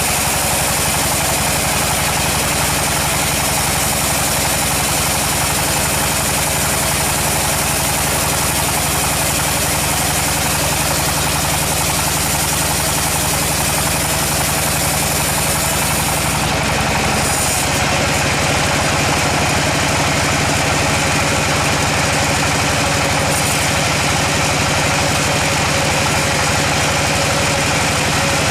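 Sawmill machinery running steadily: an engine hum under a constant dense noise, with no change in pace.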